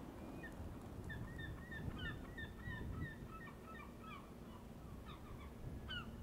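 A flock of birds calling: many short, pitched calls, several each second, over a low steady rumble.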